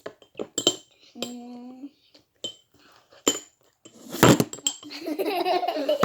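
A spoon clinking against a bowl: several sharp, ringing taps, the loudest about four seconds in.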